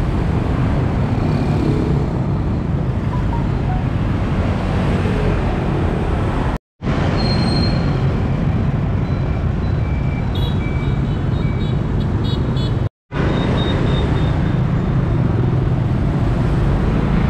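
Busy city street traffic, mostly motorbikes and cars passing in a steady dense rumble. A few short high beeps come about halfway through. The sound cuts out for a split second twice.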